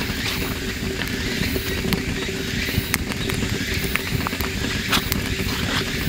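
Wood campfire crackling, with irregular sharp pops and snaps over a steady low rumble.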